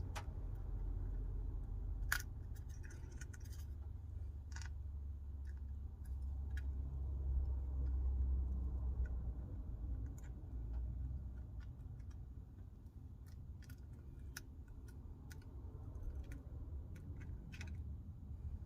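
Small, scattered clicks and taps of repair tools on an iPhone 12's internal parts while the front camera and Face ID flex is being unclipped and lifted out, over a low steady rumble.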